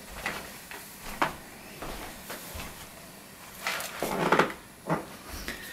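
Handling noise: a few scattered light clicks and knocks, with a louder cluster of them about four seconds in.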